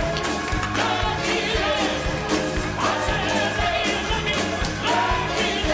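Upbeat musical-theatre song number: singing over a band with a steady beat.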